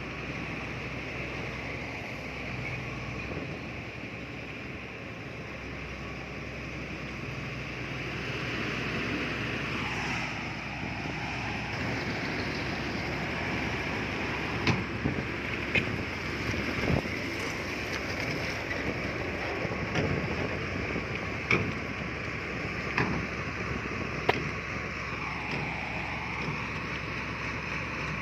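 Heavy earthmoving machinery's diesel engine running steadily, its pitch sagging twice as it takes load. Sharp knocks come several times through the second half.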